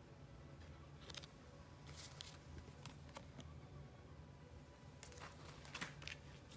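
Faint rustling of paper cards being handled and shuffled, in a few short crisp scrapes over a low room hum.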